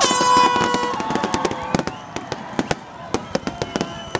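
Aerial fireworks finale: a dense barrage of shell bursts going off in rapid succession, bangs mixed with crackling. A steady, high whistling tone sounds over the bursts for about the first second, the loudest moment.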